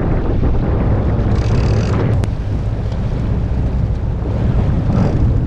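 Boat engine running steadily under wind buffeting the microphone, with a short hiss about a second and a half in.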